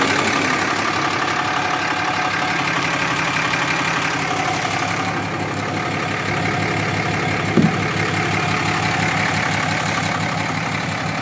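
Dodge Ram 2500's 6.7-litre Cummins turbo diesel idling steadily through an aftermarket exhaust, with one short click about seven and a half seconds in.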